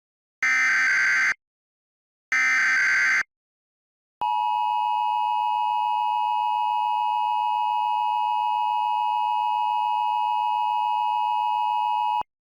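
Emergency Alert System header: two short buzzing data bursts, then the steady, piercing EAS attention tone, which holds for about eight seconds and cuts off suddenly.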